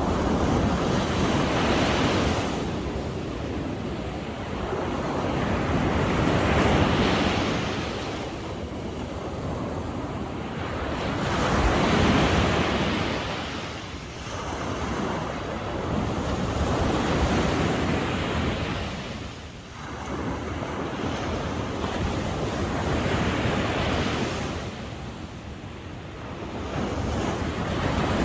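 Sea waves washing onto the shore, the surf swelling and fading in slow surges about every five seconds, with wind buffeting the microphone.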